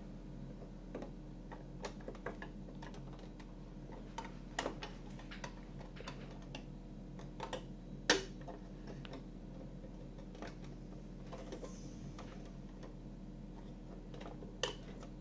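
Hard plastic scale-model parts clicking and tapping irregularly as a tinted roof-glass panel is pressed and worked into the model car's roof frame, a panel that refuses to clip in. The sharpest snap comes about eight seconds in. A low steady hum runs underneath.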